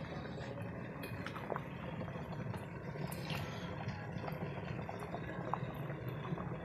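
Water boiling hard in stainless-steel pots of sliced mushrooms being cooked for pickling, a steady bubbling with many small irregular pops.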